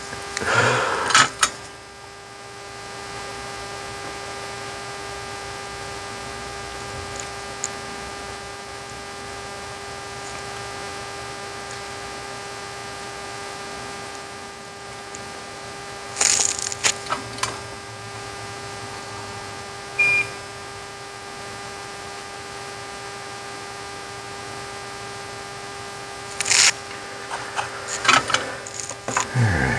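A steady electrical hum, with clusters of small clicks and taps from wires and hand tools being handled near the start, about halfway and near the end. A short single beep sounds about two-thirds of the way in.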